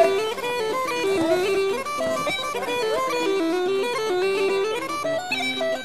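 Bagpipe music: a continuous melody of stepped, held notes.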